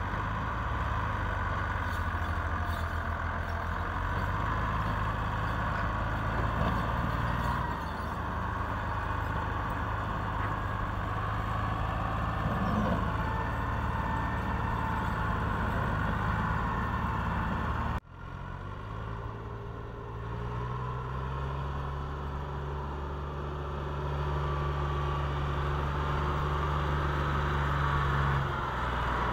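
Farm tractor's diesel engine running steadily under load as it pulls a heavily loaded trolley of earth. The sound breaks off abruptly about eighteen seconds in, then the engine note resumes and holds steady.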